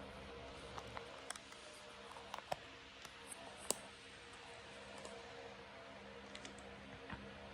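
GE 52-inch ceiling fan motor running with a faint steady hum, on its only working speed, which is medium. Scattered light clicks sound over it, the sharpest about halfway in.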